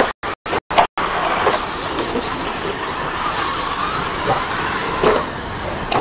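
About a second of sound chopped on and off about five times a second, then the steady sound of electric stadium RC trucks racing on a dirt track, their motors whining up and down in pitch.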